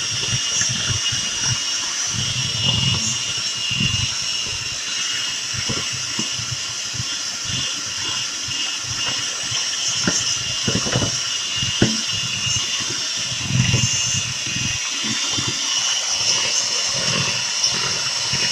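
Electric mixer running steadily, beating strawberry icing of butter, powdered sugar and mashed strawberries in a bowl: a steady motor whine with irregular low knocks of the beaters in the bowl.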